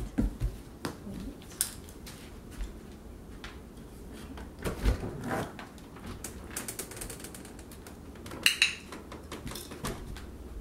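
Scattered small clicks and taps of footsteps and a puppy's claws on a parquet floor, then a front door's knob and latch rattling as the door is opened in the second half, with a sharp cluster of clicks about eight and a half seconds in.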